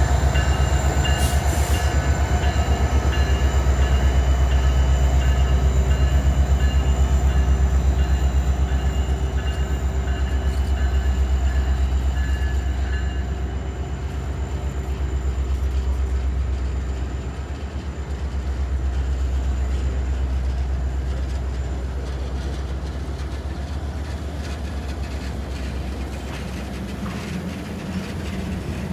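Alaska Railroad diesel train pulling out, the locomotive's engine giving a deep, steady drone with a fast, even pulse. Thin high tones over it stop about halfway through, and the whole sound slowly grows quieter as the train moves off.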